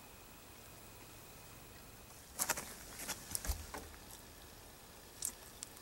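Mouth noises of someone biting into and chewing a bacon-wrapped Twinkie. A run of short sharp clicks comes about two and a half seconds in, and one more comes near the end.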